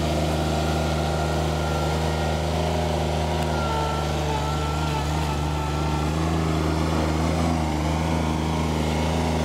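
John Deere 2653A reel mower's Yanmar three-cylinder diesel engine running steadily while the mower drives across grass.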